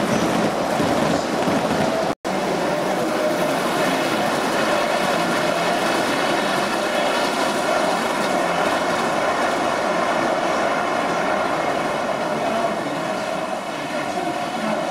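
Model trains running on the layout track: a steady rumble of wheels on rail with a faint high whine over it. A split-second dropout about two seconds in.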